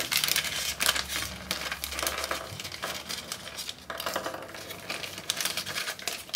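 Clear plastic bag crinkling as it is handled and opened, with small clicks and taps as tiny model-kit parts, tyres and a photo-etched brass fret, tumble out onto a wooden tabletop.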